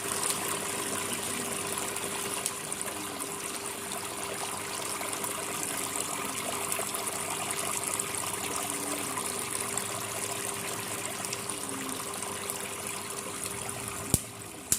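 Small decorative water fountain running, water trickling and splashing steadily, with a faint steady hum underneath. A single sharp click near the end.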